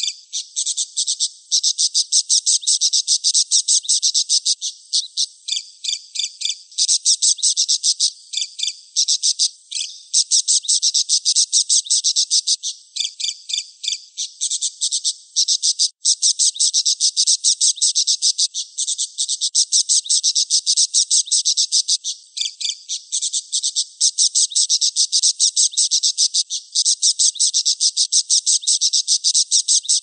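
Budgerigar chatter: a dense, unbroken run of rapid high-pitched chirps, pausing briefly every few seconds.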